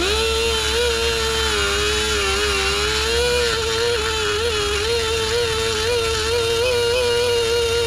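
Die grinder with a carbide bit running at speed and cutting into an aluminum cylinder head: a steady high whine whose pitch wavers slightly as the bit bites into the metal.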